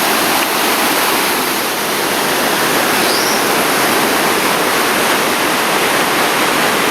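Falling water of a waterfall rushing steadily and loudly, an even hiss with no let-up.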